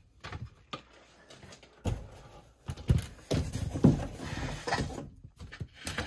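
Irregular knocks, rubs and clicks of handling, with the loudest knocks about three and four seconds in; no steady fan hum.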